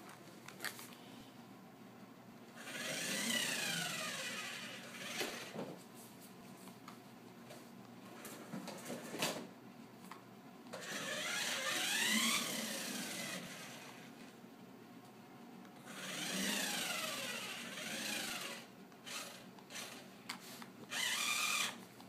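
Remote control toy car's small electric motor whirring in three spells, its whine sliding up and down in pitch as it speeds up and slows down, with a few sharp clicks and knocks between runs.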